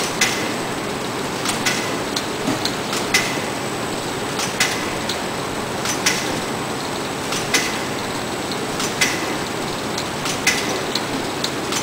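Shanklin OMNI-G automatic side-seal shrink wrapper running: a steady mechanical whir under a sharp clack that repeats about every one and a half seconds as the machine cycles, with lighter ticks in between.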